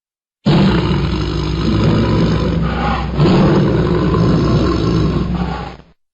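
Tiger roaring: a long, loud, low roar that starts abruptly about half a second in, dips briefly midway, swells again and cuts off sharply near the end.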